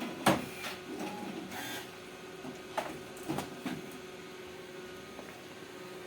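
A machine mechanism running with a steady hum, with several clicks and knocks during the first four seconds.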